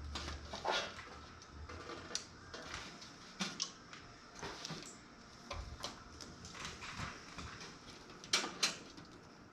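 Scattered clicks, knocks and rustles of PC power-supply cables and connectors being handled and fitted inside a metal toaster-oven case, with a sharp double click about eight and a half seconds in.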